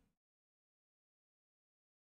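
Silence: the soundtrack is digitally silent.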